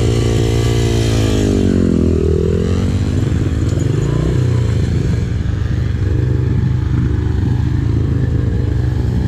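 Small pit bike engine running close by: the revs drop over about two seconds, climb again, then settle into a steady run.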